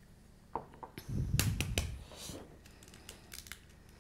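Light clicks and taps of kitchen items being handled around a glass mixing bowl on a countertop, with a low muffled rumble lasting about a second from about a second in.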